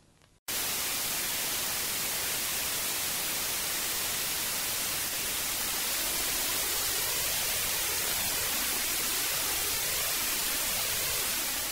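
Television static: a steady hiss of white noise that cuts in suddenly about half a second in.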